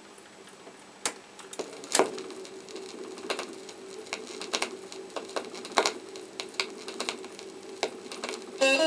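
Fidelity UA4 stereo record player's stylus running in the lead-in groove of a vinyl record: a steady low hum and hiss with scattered sharp clicks and crackles from the record surface. Guitar music starts abruptly near the end.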